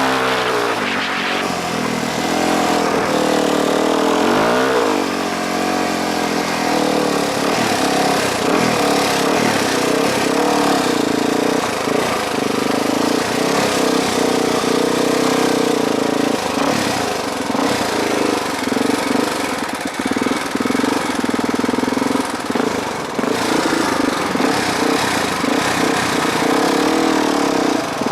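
Kawasaki KLX dirt bike's single-cylinder four-stroke engine running under way. Its pitch rises and falls with the throttle in the first few seconds, then it holds a fairly steady note, with frequent short knocks and clatter over the engine.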